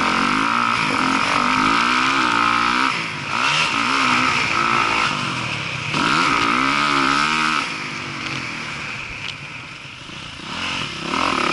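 Motocross dirt bike engine being ridden hard, its pitch climbing and falling as the rider works the throttle and gears. The throttle closes briefly about three seconds in, and again for a longer quieter stretch from about eight seconds, before the engine picks up again near the end.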